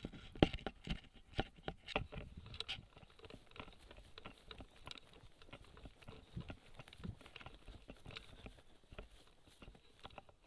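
Footsteps crunching through dry leaves and brush: irregular crunches and rustles, with a few sharper knocks in the first couple of seconds.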